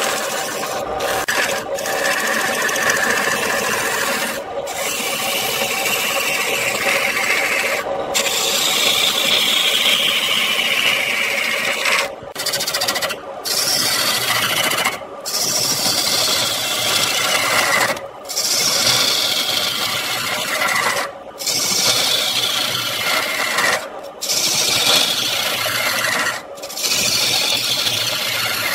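Hand-held turning tool cutting a spinning wooden spindle on a wood lathe: a continuous rasping, scraping cut over the lathe's steady hum, with a pitch that slides as the tool moves along the profile. The sound drops out briefly about every two to three seconds.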